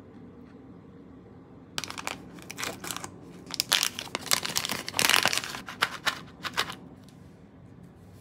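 Crinkling and rustling of something being handled: a dense run of crackles starting about two seconds in, loudest near the middle, dying away about a second before the end.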